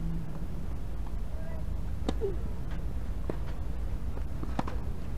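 Tennis ball being hit or bounced: three sharp knocks about a second and a quarter apart, over a steady low rumble.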